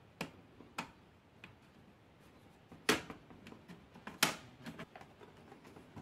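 Plastic snap clips of a laptop's bottom cover popping loose as a plastic pry tool works along the seam between the casing halves: a few separate sharp clicks, the two loudest about three and four seconds in, with fainter ticks between.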